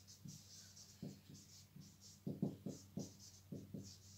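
Marker pen writing on a whiteboard: faint, irregular short strokes and light taps, busiest in the second half, over a steady low hum.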